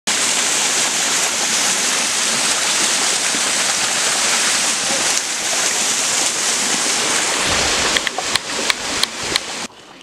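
Waterfall pouring down a rock face: a steady, loud rush of falling water. Near the end a few sharp knocks sound over it, and then the rush cuts off suddenly.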